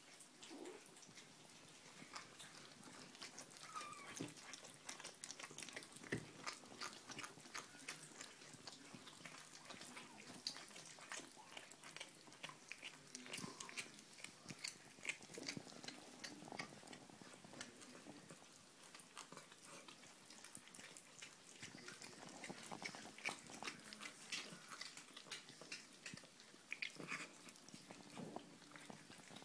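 Kittens chewing raw meat from steel bowls: faint, quick, wet clicks and smacks of biting and chewing, kept up throughout.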